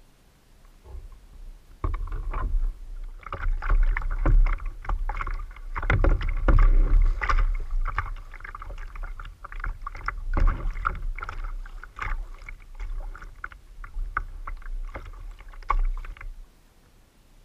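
Paddling a sit-on-top kayak: double-bladed paddle strokes splashing, with water rushing and slapping along the hull over a low rumble. It starts about two seconds in and stops shortly before the end.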